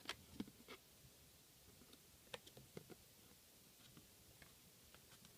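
Faint clicks and taps of glossy trading cards being handled and swapped between fingers: a few right at the start and a few more about two and a half seconds in.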